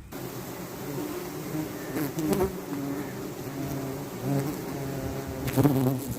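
A swarm of wild honey bees buzzing in a dense, steady hum around a colony being harvested, swelling louder about two seconds in and again near the end.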